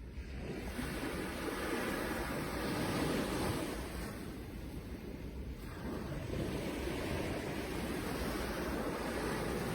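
Sea waves washing onto a shore in a steady surf, swelling up twice with a lull between.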